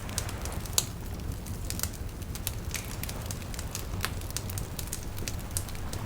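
Wood fire burning, crackling and popping at irregular moments over a steady low rumble, with one louder pop a little under a second in.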